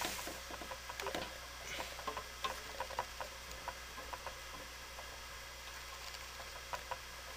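Light, irregular clicks and ticks as a high-velocity fan's metal blade is spun by hand and its hub worked back and forth on the motor shaft, to seat the set screw in the shaft groove.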